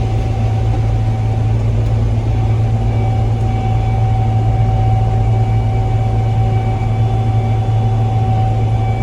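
Combine harvester running steadily while harvesting corn: a loud, even low engine hum with a steady mid-pitched whine from the machinery.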